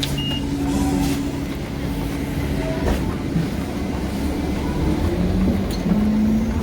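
City bus engine running close by, a steady low hum that breaks off about three seconds in and settles on a higher note near the end, over a heavy rumble.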